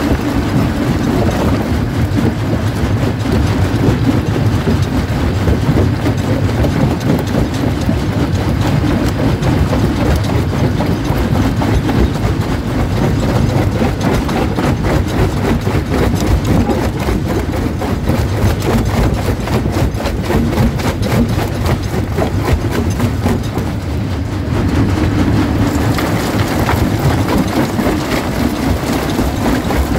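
Primary jaw crusher running under load, rock cracking and grinding between its jaws: a dense run of cracks and knocks over a steady low machine drone. The sound eases briefly a few seconds before the end.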